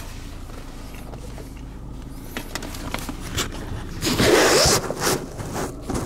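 Rustling and scraping handling noise with scattered clicks over a low steady hum; the loudest is a scraping rustle about four seconds in.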